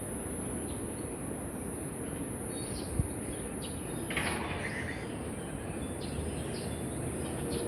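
Wild birds giving scattered short chirps, with one brief harsher call about four seconds in, over a steady high-pitched background drone. A single sharp click sounds about three seconds in.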